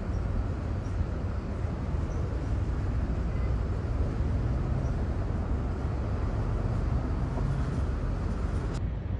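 Steady low rumble of heavy vehicle traffic running outdoors, with no distinct knocks or tones; the upper hiss drops away suddenly near the end.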